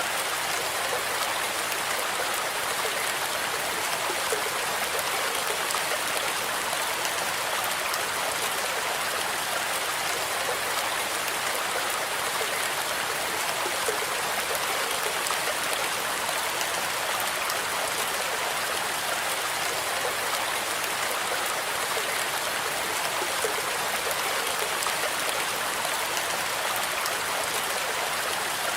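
Steady rain blended with white noise: an even, unbroken hiss with faint scattered drop ticks.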